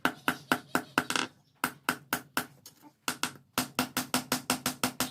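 Hammer blows on steel leaf-spring stock at an anvil, struck in quick regular runs of about four a second, each blow ringing. After two short pauses the pace picks up to about five a second near the end.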